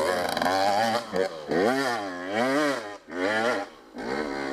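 Dirt bike engine revving up and down under load while climbing a steep hill, its pitch rising and falling about once a second as the throttle is worked. The engine drops off briefly near the end.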